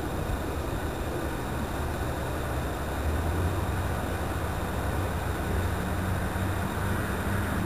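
Steady, distant low rumble with a faint low hum that swells slightly mid-way, under light wind noise on the microphone.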